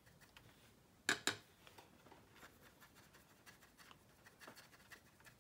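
Faint scratchy ticks of a fine paint brush dabbing weathering paint onto the wheel of a plastic scale model, with two quick knocks about a second in.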